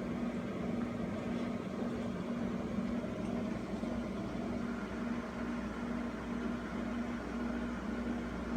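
Steady mechanical hum with a low drone, and a tone that pulses on and off about twice a second.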